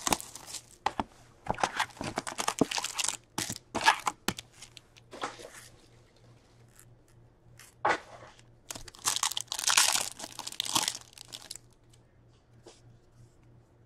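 Packs of 2021 SPx hockey cards being torn open and their wrappers crinkled by hand, in several bursts of tearing and rustling with light clicks and quiet pauses between.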